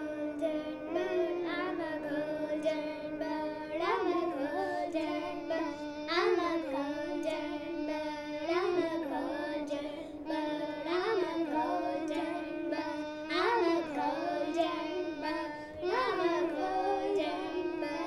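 A child singing a wordless melody solo. She holds one note and lifts it in a short upward swoop every two seconds or so, closing out the song.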